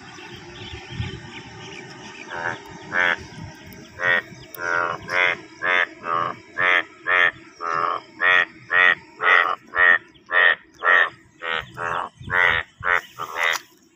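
Indian bullfrogs, yellow breeding males in a rain-filled pond, croaking in a monsoon breeding chorus. After a couple of seconds of fainter background chorus, loud short croaks start, about two a second, and keep on.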